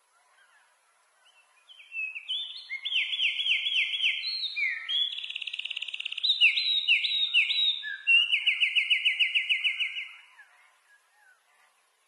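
A songbird singing one long, loud song of fast trills and rapid repeated notes, starting about two seconds in and stopping about ten seconds in, with faint chirps around it.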